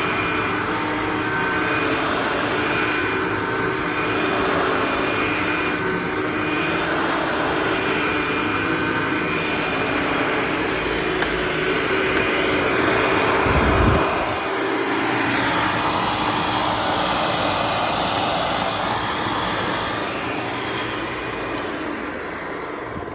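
Hoover Dial-A-Matic U6041 upright vacuum cleaner running: a steady motor whine over a dense rush of air. A brief low bump about fourteen seconds in, and the sound grows gradually quieter near the end.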